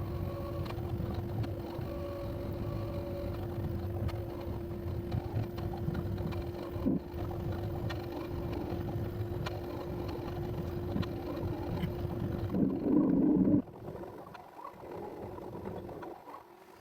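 Bambu Lab P1S 3D printer running a print: a steady hum of fans and stepper motors with one constant tone. About thirteen seconds in there is a louder buzzing move lasting about a second, after which the printer goes quieter.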